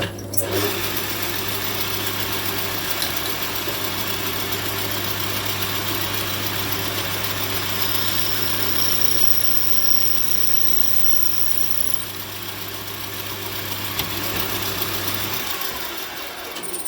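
A small electric workshop machine tool running steadily for a short burst while cutting back the end of a thread on a brass trumpet valve part. It hums under a noisy whir, with a thin high whine for a few seconds in the middle. The motor hum stops about a second and a half before the noise dies away.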